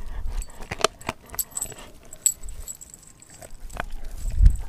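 A Doberman gnawing a raw frozen pig's foot: scattered crunches and clicks of teeth on bone and frozen meat, with the metal tag on its collar jingling. There is a low thud near the end.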